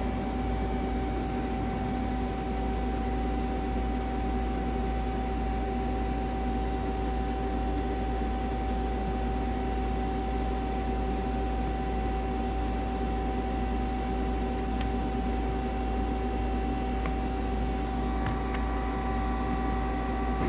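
Hurco TMM 8 CNC lathe running with a steady hum, a low drone and a constant high whine, with a few faint ticks.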